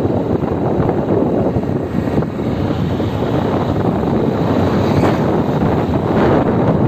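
Steady rushing wind noise buffeting the microphone from a moving car, mixed with road noise.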